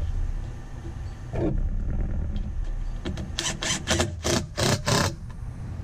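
DeWalt cordless drill driving screws into a plywood box in five or six short trigger bursts, about three a second, starting about three seconds in. Under it runs a low rumble.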